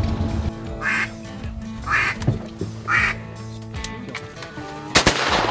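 Three duck quacks about a second apart over background music, then a single gunshot near the end.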